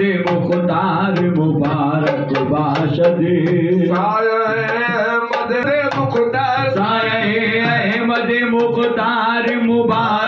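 Sufi devotional song sung in Urdu/Hindi with a wavering melodic vocal line over steady hand-drum percussion and instrumental accompaniment.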